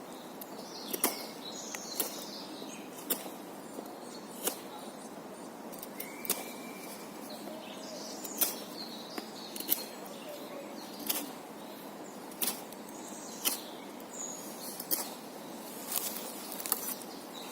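Victorinox German Army Knife's plain-edge blade making repeated cuts, a sharp click with each stroke about once a second, while small birds chirp in the background.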